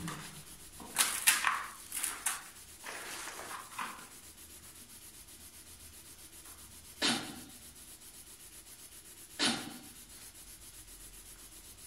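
Faint rubbing and scraping noises: a few short scuffs in the first four seconds, then two brief scrapes about seven and nine and a half seconds in.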